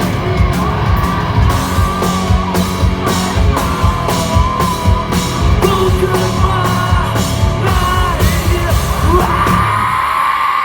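Rock music: a yelled, sung vocal over a band with a steady drum beat.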